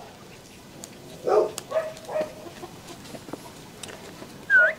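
Bắc Hà puppies at play, giving a few short whines and then one loud, high yelp near the end.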